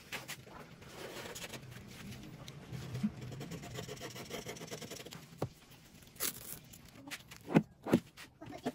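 Faint scraping as a small hand tool works along the edge of the laminate tabletop, then a metal ball-bearing drawer slide being pulled out with a short rolling zip and a few sharp metal clicks near the end.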